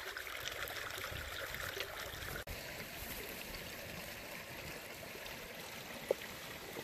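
Small shallow creek trickling steadily over rocks, with one short tap about six seconds in.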